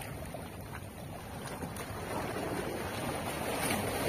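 Wind on the microphone over sea waves washing against shoreline rocks, a steady rushing noise that grows a little louder toward the end.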